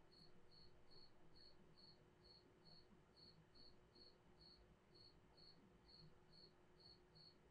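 Near silence with a faint cricket chirping steadily, about two or three chirps a second.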